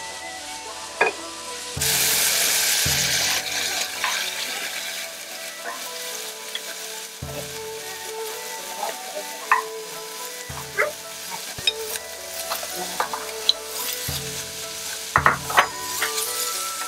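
Thin strips of marinated beef sirloin sizzling in a hot wok over high heat, stirred with a wooden spatula that clicks and scrapes against the pan. About two seconds in there is a loud surge of sizzling that eases after a second or so.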